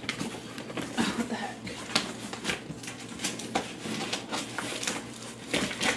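Cardboard shipping box being handled and lifted: scattered light knocks, taps and scrapes of cardboard, several a second.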